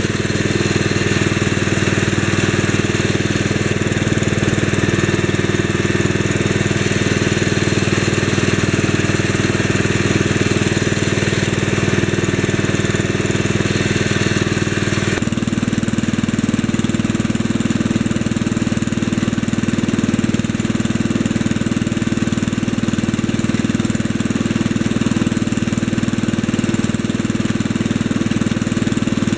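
The 8 horsepower single-cylinder engine of a 1965 Wheel Horse 875 garden tractor running steadily. About halfway through the sound changes suddenly: the higher whirr drops away and the low engine note shifts.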